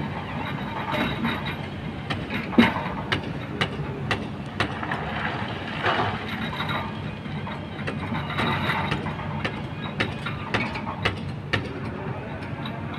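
Kobelco hydraulic excavator's diesel engine running steadily as the machine swings and works its bucket in river stones, with repeated sharp clacks of rocks knocking against the steel bucket and each other; the loudest knock comes about two and a half seconds in.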